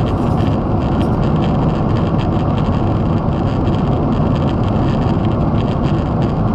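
Steady cabin noise of a Boeing 777 in cruise flight, heard from a window seat beside the wing: jet engine and airflow rushing together, low-pitched and unchanging.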